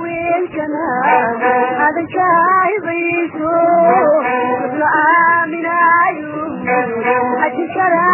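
Somali song: a voice singing a melody over instrumental accompaniment, in a dull recording with no high treble.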